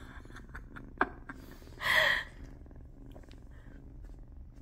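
Eight-week-old tabby kitten purring, a steady low rumble. A sharp click comes about a second in, and a short breathy sound, the loudest thing, about two seconds in.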